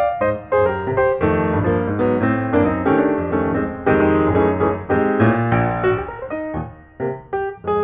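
Background piano music, a steady run of notes and chords.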